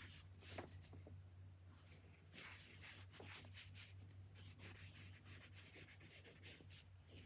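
Faint scratching of a pencil writing on paper, in short runs of quick strokes, over a steady low hum.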